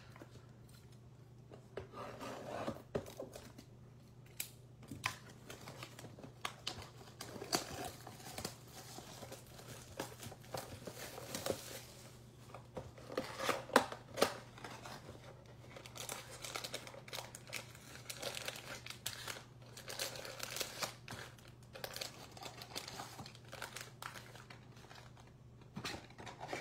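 Cellophane shrink wrap being torn off a cardboard box of trading cards, then the box's cardboard flap torn open, with scattered handling crackles; the loudest tears come about halfway through.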